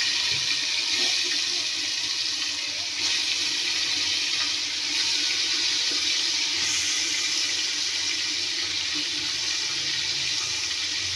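Raw chicken pieces sizzling in hot oil in a metal degh (cooking pot): a steady, even hiss that keeps up throughout.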